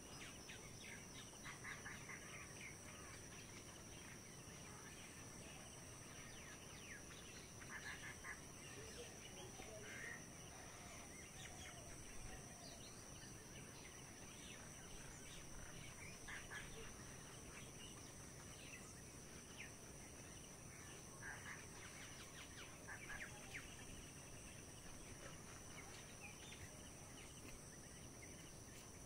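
Faint rural outdoor ambience: a steady soft hiss with scattered distant bird calls a few seconds apart.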